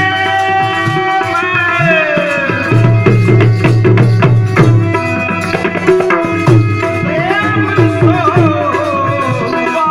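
Live Gujarati devotional folk music: tabla drumming under a melody of held notes and sliding, ornamented lines. There is a run of quick tabla strokes around the middle.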